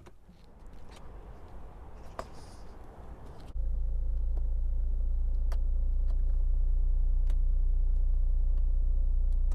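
A few faint clicks, then about three and a half seconds in a steady low rumble starts abruptly and runs on evenly: the Renault Clio's engine running at idle.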